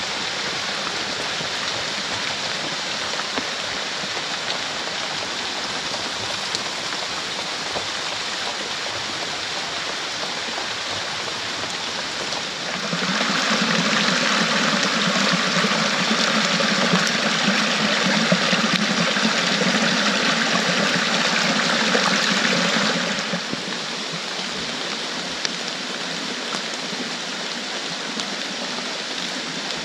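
A stream rushing steadily, running high after heavy rain. For about ten seconds in the middle the rush is louder and fuller, starting and stopping abruptly.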